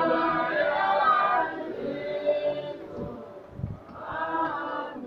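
A congregation of voices singing a hymn together, a long phrase held for the first second and a half, then softer, with another sung phrase near the end.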